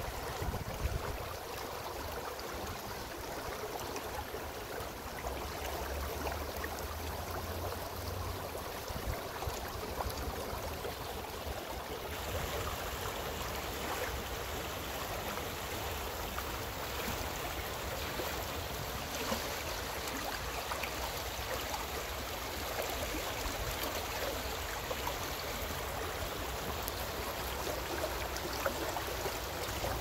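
Shallow rocky river running over stones, a steady rush of water through small riffles.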